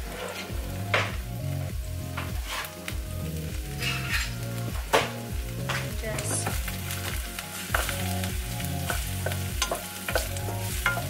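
Chopped onion sizzling as it fries in oil in a nonstick wok, with a wooden spatula stirring it and knocking against the pan now and then. Background music plays underneath.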